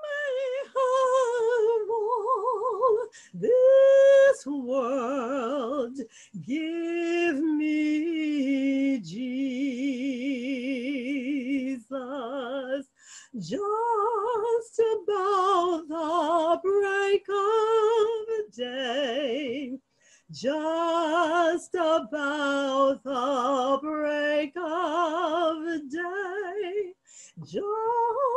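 A woman singing a slow spiritual solo, unaccompanied, holding long notes with a wide vibrato and breaking into phrases with short breaths.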